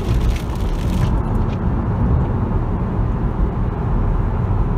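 Lamborghini's engine and road noise heard from inside the cabin, a steady low rumble. The hiss of rain and wet tyres cuts off about a second in as the car enters a tunnel.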